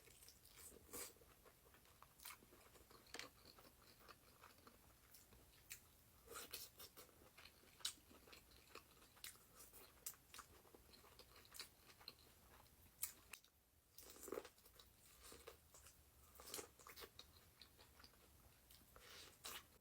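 Close-up eating sounds: a person chewing and biting food, with irregular soft crunches and wet clicks, pausing briefly about two-thirds of the way through.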